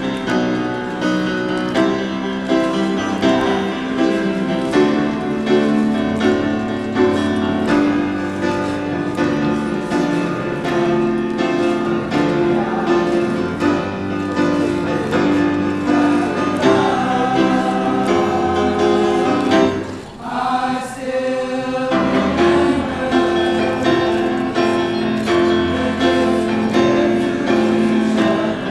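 High school men's choir singing in harmony, with chords held in several voice parts. The sound thins and drops briefly about twenty seconds in, then the full choir comes back.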